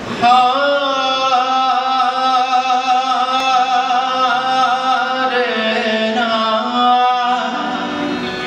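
A man singing one long held vowel into a microphone, the note wavering with vibrato; about five seconds in it dips lower and then climbs back before the phrase ends.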